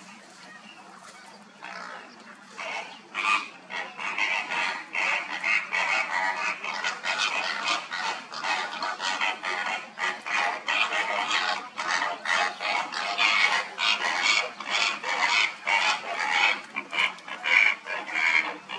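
A dense chorus of short, harsh water-bird calls, many overlapping and several each second, building up about two seconds in and carrying on throughout.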